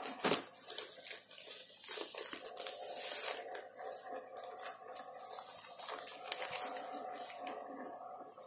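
Clear plastic bags holding cross-stitch kits rustling and crinkling with many short crackles as they are shuffled through by hand and one is pulled from the pile.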